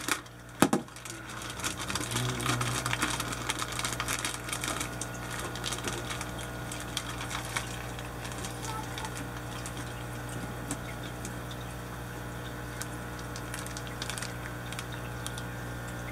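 Aquarium air pump humming steadily, with a constant patter of air bubbles from the sponge filter and bubble wand breaking at the water surface. A single sharp click comes about a second in.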